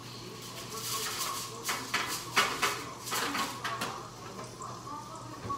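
Aluminium foil crinkling and crackling as it is pressed and shaped over a metal baking sheet, in a quick run of sharp crackles through the middle, over a faint steady low hum.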